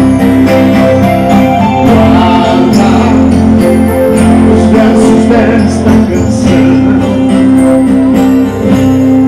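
Live gaúcho regional music: acoustic guitars and keyboard playing a song with a steady beat.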